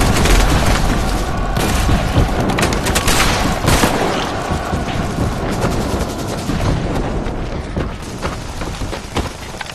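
Battle sound effects: many gunshots and explosion booms over a heavy low rumble, thinning out and growing quieter toward the end.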